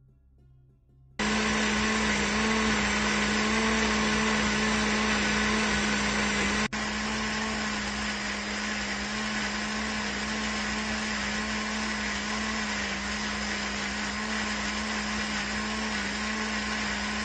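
Electric blender running steadily at full speed, puréeing tomatoes into juice, with a strong low motor hum. It starts abruptly about a second in, cuts out for an instant about a third of the way through, then runs on a little quieter.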